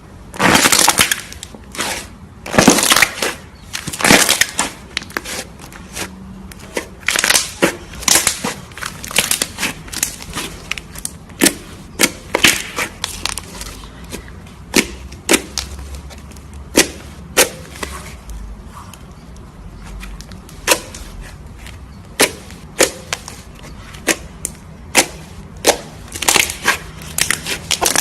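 Slime being squeezed and pressed by hand, making irregular sharp pops and crackles, with a few longer crackling squishes in the first few seconds.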